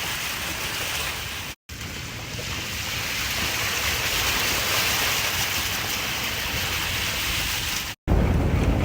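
Steady rushing outdoor noise, like wind on the microphone, broken by two abrupt cuts to silence about a second and a half in and near the end; after the last cut a louder, lower rumble starts.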